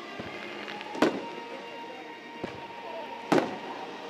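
Aerial firework shells bursting overhead: two loud sharp bangs, about a second in and again near the end, with a smaller thud between them.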